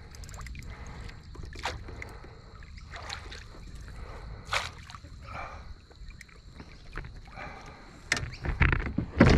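Fish being brought alongside a small boat and netted: scattered knocks and taps against the hull and gear over a steady low rumble, with louder thumps and knocks near the end as the fish reaches the net.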